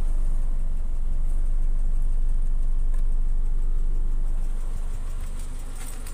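Hyundai Accent's engine idling, heard from inside the car as a steady low rumble that eases off a little about four and a half seconds in.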